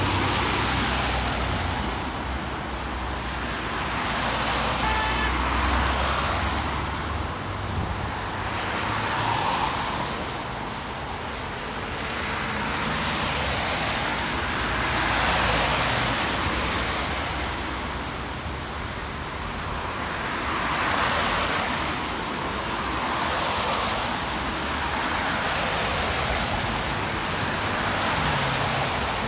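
Road traffic: cars passing one after another every few seconds, each swelling and fading as it goes by, with a low engine rumble during the first several seconds.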